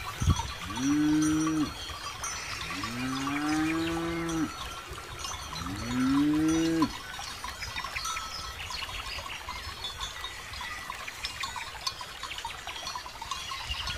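Cattle mooing three times in the first half, each call a second or two long, over the steady jingling of the grazing herd's neck bells, which carries on alone afterwards.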